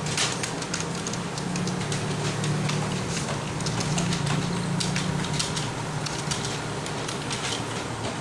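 Computer keyboard keys clicking in a quick, uneven stream as someone touch-types, over a steady low hum.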